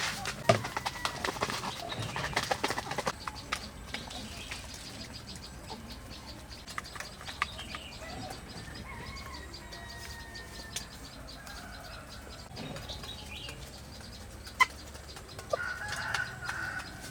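Chickens clucking and flapping their wings, with a quick run of clicks and knocks in the first few seconds and one sharp knock later on.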